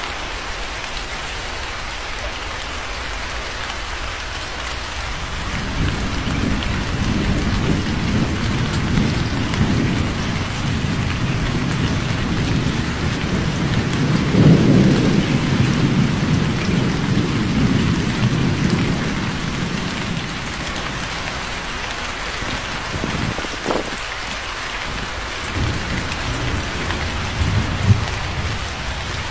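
Steady heavy rain hissing, with a long roll of thunder that builds from about five seconds in, peaks midway and slowly fades. Near the end comes a sharper thunder crack, followed by short low rumbles.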